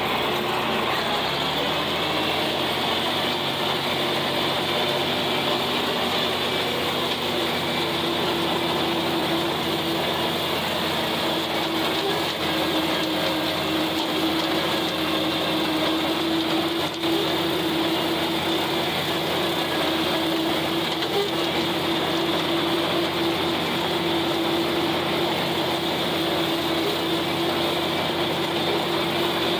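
John Deere 4020 tractor's six-cylinder engine pulling under load while driving a flex-wing rotary cutter whose blades are mowing. It rises a little in pitch over the first second or two, then holds a steady drone with a steady hum.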